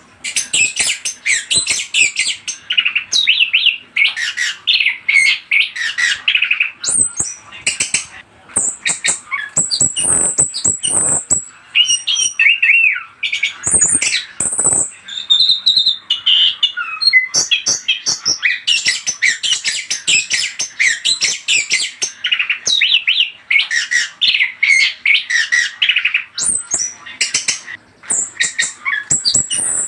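Orange-headed thrush (anis kembang) singing a rapid, varied song of chirps, trills and whistles, nearly continuous with a few short breaks. It is a trigger song, played to provoke captive birds into answering and singing.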